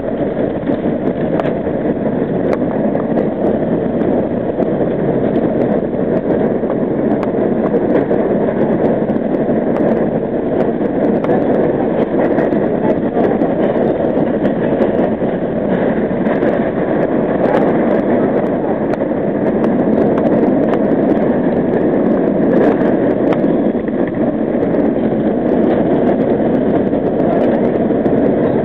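R38 subway train running steadily through a tunnel: a continuous noise of wheels on rail and running gear, echoing off the tunnel walls, with scattered light clicks.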